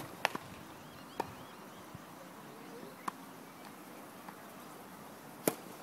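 A tennis racquet striking the ball on a serve, one sharp crack right at the start and the loudest one about five and a half seconds in, with a few fainter knocks of the ball in between. Faint bird chirps sound in the background.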